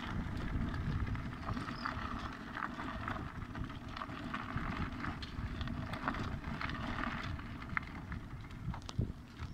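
Electric scooter rolling along a park path: a steady low rumble of wind and tyre noise, with scattered small clicks and rattles.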